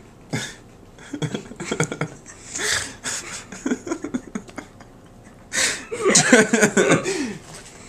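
People laughing: short bursts of giggling and breathy chuckles, breaking into the longest and loudest stretch of laughter about five and a half seconds in.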